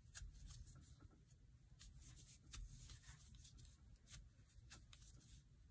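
Faint rustling and irregular light clicks of a metal crochet hook pulling thick tape yarn through stitches in single crochet, over a low room hum.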